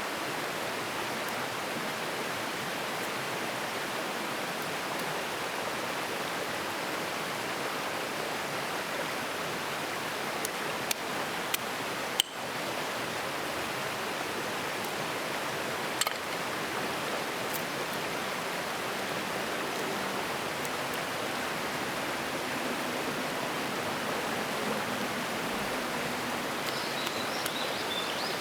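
Steady rush of a flowing mountain stream, with a few sharp clicks or knocks partway through and a bird chirping near the end.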